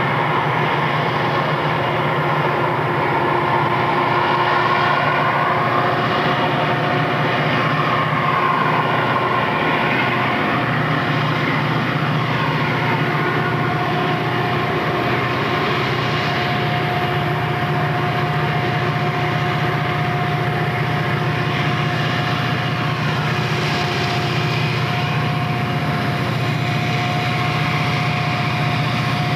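Four EMD six-axle diesel locomotives working hard in notch 8 (full throttle), climbing a 3.5% grade under a heavy train. Their engines make a steady, loud drone with a constant high whine over it.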